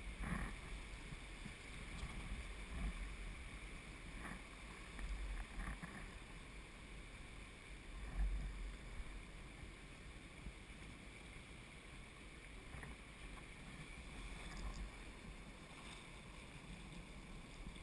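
Wind buffeting an action camera's microphone in gusts, the strongest about eight seconds in, over the faint steady wash of river water around a paddle raft, with a few soft knocks.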